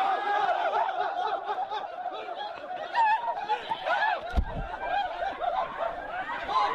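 A group of people laughing and shouting over one another, many voices at once. A brief low thump comes about four seconds in.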